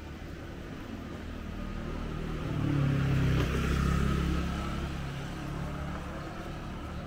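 A motor vehicle passing close by on the street, its engine sound swelling to a peak about three to four seconds in and then fading.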